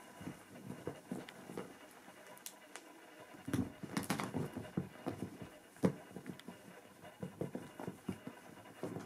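Savannah kittens play-fighting and pouncing on a quilted bedspread: irregular soft thumps and scuffles of paws and bodies, sparse at first and busier from about three and a half seconds in.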